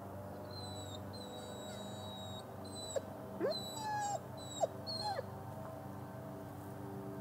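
Doberman whining and whimpering: thin high-pitched tones in the first couple of seconds, then a run of short cries sliding up and down in pitch about three to five seconds in. It is the restless whining of an excitable young dog that is made to sit and wait.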